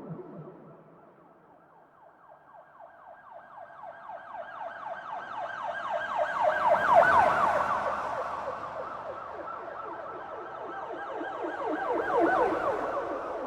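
Police siren sounding in a fast yelp, its pitch sweeping up and down several times a second. It grows from faint to loud as it approaches, peaks about halfway through, eases off, then swells again near the end.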